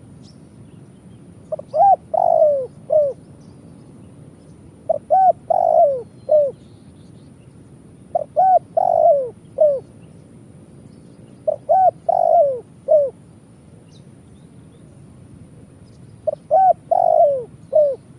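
Spotted dove (tekukur) cooing: five phrases of four or five short, downward-bending coos, one every three to four seconds. It is the call used as a lure to draw wild spotted doves in.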